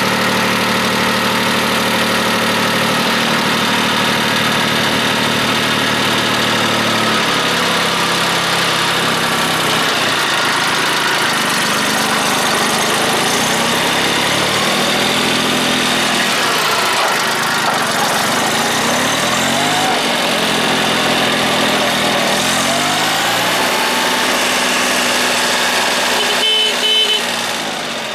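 Mitsubishi MT1601 compact tractor's diesel engine running, its speed rising and falling several times, then dropping back near the end.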